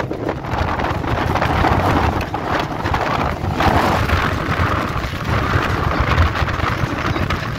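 Polaris RZR side-by-side driving along a dirt trail: its engine runs steadily under way, with wind buffeting the microphone in the open cab.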